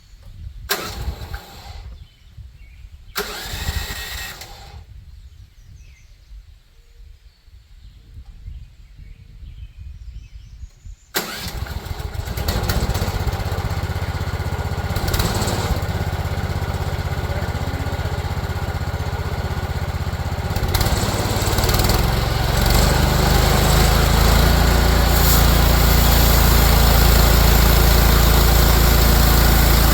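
Engine of a Mechmaxx 32-inch sawmill starting about eleven seconds in after a few short noises, then running steadily. It gets louder in two steps in the second half.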